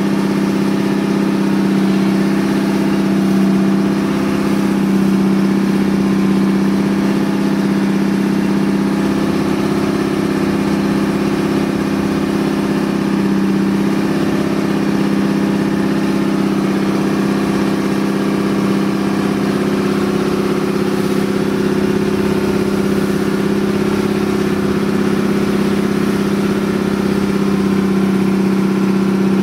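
Outrigger boat's engine running steadily under way, a loud drone holding one pitch throughout.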